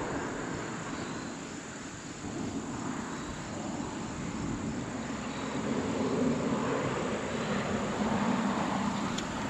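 A low, steady engine drone, growing louder about six seconds in.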